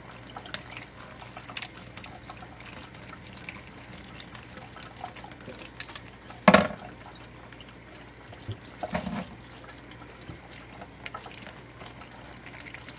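Kitchen tap running steadily onto hands peeling a hard-boiled egg over a plastic colander. A sharp knock about six and a half seconds in is the loudest sound, and a smaller clatter follows around nine seconds.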